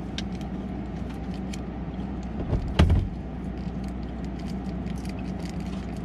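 Steady low mechanical hum, with a single dull thump just under three seconds in.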